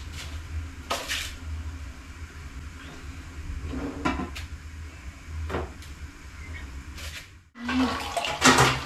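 Plastic basin of rice being handled in a stainless steel sink: a few separate knocks and clicks over a steady low hum. Near the end, the tap runs water into a plastic mug held over the basin.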